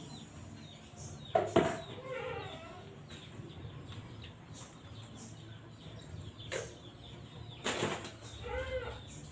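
Chickens clucking, in short arched calls about two seconds in and again near the end. Two sharp knocks come about a second and a half in, and a brief rustling burst comes shortly before the end.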